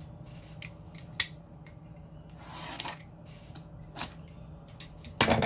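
Cardboard box being opened and handled by hand: scattered sharp clicks and a short scraping rustle, with a louder burst of noise near the end.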